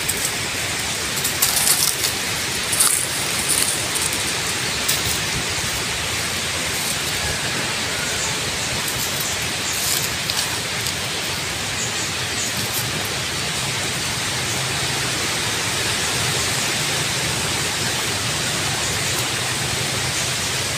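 A steady, even hiss with a few short crackles in the first five seconds.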